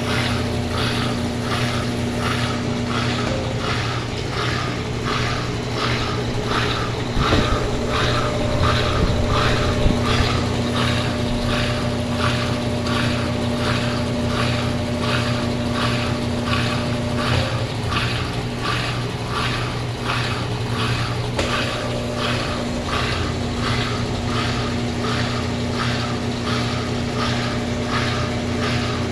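Brastemp Clean 10 kg washing machine (BWC10A) in its spin cycle, with a tent as the load: a steady motor hum under a regular swishing pulse about twice a second.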